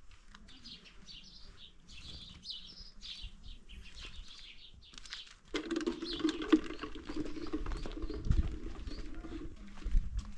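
Small birds chirping, joined about halfway through by a louder steady hum that lasts about four seconds, with a couple of dull thumps near the end.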